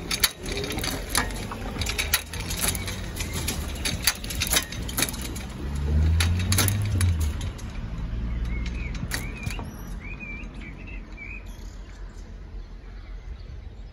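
A car drives over the level crossing about six seconds in, its engine rising in pitch as it passes. Before it comes a run of sharp clicks and knocks, and afterwards a small bird chirps a few times.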